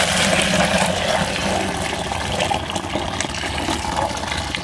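Hot water pouring from a metal pot through a plastic colander into a bucket, draining freshly boiled pasta. The stream eases off toward the end as the noodles slide out into the colander.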